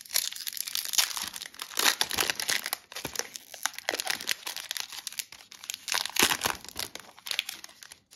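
Foil wrapper of an Upper Deck hockey card pack being torn open and crinkled in the hands: a dense run of sharp crackles and tearing.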